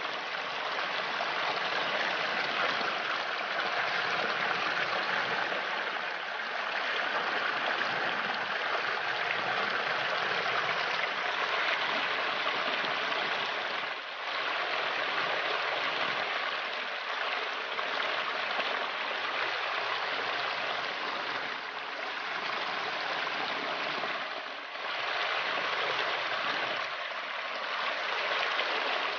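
Small mountain stream spilling in a little cascade over mossy rocks: a steady rushing and splashing of water that dips briefly twice.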